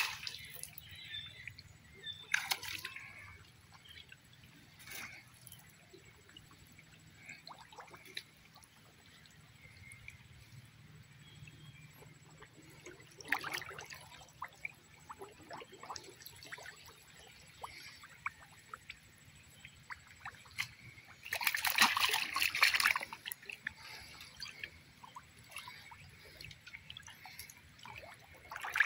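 Water splashing and sloshing in short bouts as a cast net is hauled and handled in shallow pond water, with trickling and dripping between. The longest and loudest splashing comes about two-thirds of the way through.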